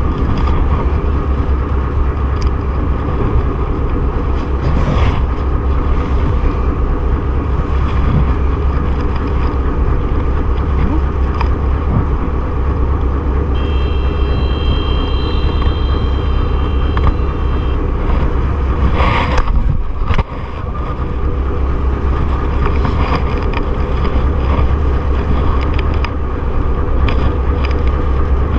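Boat engine running steadily with a continuous low drone. A thin, steady high tone sounds for about four seconds midway.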